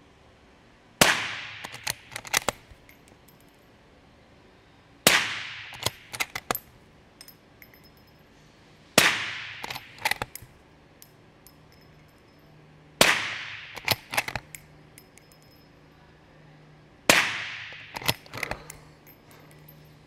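Five suppressed rifle shots, evenly spaced about four seconds apart, from a .450 Bushmaster Mossberg Patriot bolt-action rifle fitted with a Griffin Armament Bushwhacker 46 suppressor. Each shot is followed by a quick run of metallic clicks as the bolt is cycled for the next round.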